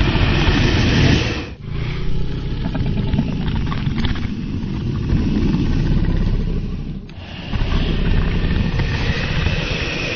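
Designed dragon sound effect: a loud, low, rumbling growl-and-rush noise in long continuous stretches, dipping briefly about a second and a half in and again about seven seconds in.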